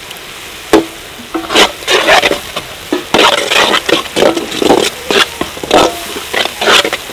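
A slotted spatula stirring and scraping onions, green chillies and fresh ginger-garlic paste as they fry in oil in a black iron kadai. Under the steady sizzle come quick scrapes, about two a second.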